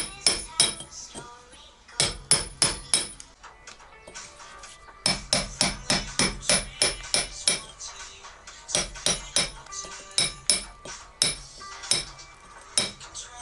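Hammer blows struck in several quick runs of about three a second, with short pauses between runs. Each blow has a bright metallic ring.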